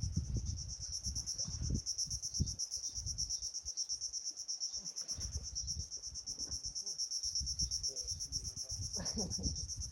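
Insects trilling steadily in a fast, high-pitched pulsing chirr, with irregular low gusty rumbles of wind on the microphone underneath.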